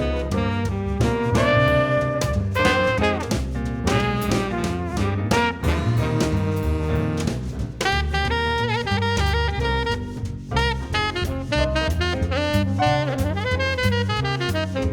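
Background jazz music with saxophone and brass over a steady bass and drum beat.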